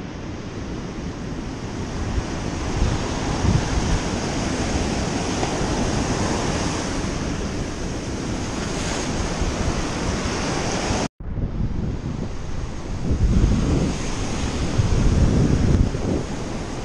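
Surf breaking on a sandy beach, with wind buffeting the microphone. The sound drops out for an instant about eleven seconds in, and after it the low wind rumble comes in stronger gusts.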